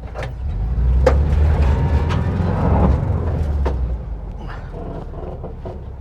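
Air-cooled flat-four engine of a VW split-window bus revving under load while the bus reverses out of a pinched spot; the revs build about half a second in and drop back after about four seconds. A few sharp knocks sound over the engine.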